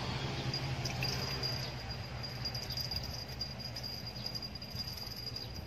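An insect's steady, high-pitched call that starts about half a second in and holds, over a low outdoor rumble.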